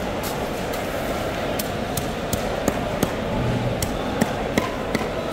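Fishmonger's cleaver chopping fish on a cutting block: sharp knocks at a steady pace of about three a second, starting about a second and a half in, over the steady background noise of the market hall.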